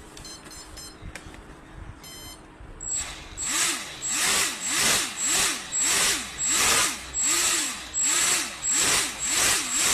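A small electric motor is spun up and down in quick pulses, about twice a second, each pulse rising then falling in pitch. A few short beeps come before it starts, about three seconds in.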